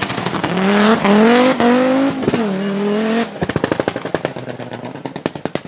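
Rally car engine revving hard through several quick upshifts, its note climbing and dropping back with each change. It then lifts off into a rapid string of sharp exhaust pops and crackles that fade as the car moves away.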